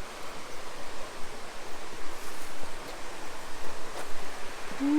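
Steady rush of falling water from a waterfall and its stream.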